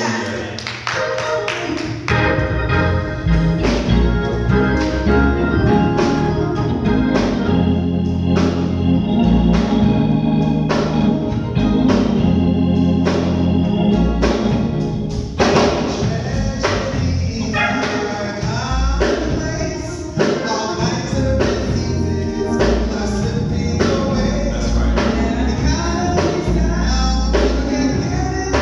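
Live gospel praise-and-worship music: a group of singers on microphones singing over instrumental accompaniment with a steady beat.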